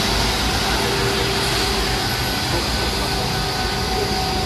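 Steady rushing noise with a faint engine hum from an armoured water-cannon truck working close by.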